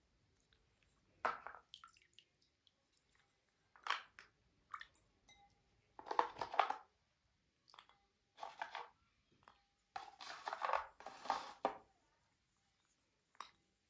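Slate cubes crunching as they are handled, in about six separate bursts. The two longest and loudest bursts come near the middle and towards the end.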